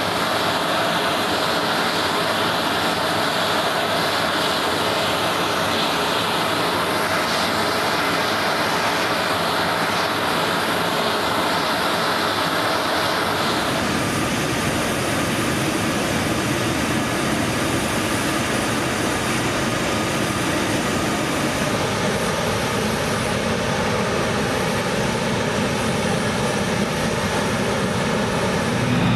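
Jet engines of a parked C-17 Globemaster III, its four Pratt & Whitney F117 turbofans, running steadily as a loud, continuous noise. The character of the noise changes abruptly about halfway through.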